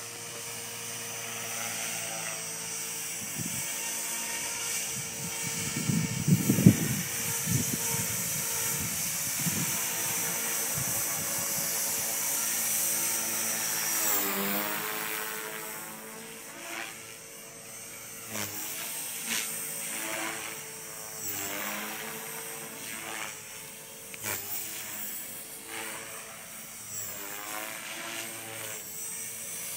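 Remote-control model helicopter flying, its motor and rotor giving a steady whine that from about halfway begins rising and falling in pitch again and again. A burst of low rumbling comes about six seconds in.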